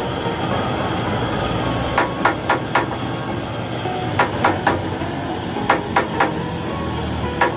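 A hammer tapping metal in quick groups of three or four strikes, a couple of seconds apart, over a steady background noise.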